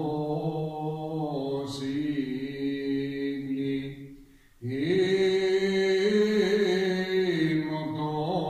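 Unaccompanied men's singing of a Cretan rizitiko song, in long held, slowly ornamented notes. One phrase ends about four seconds in, and a louder new phrase starts about half a second later.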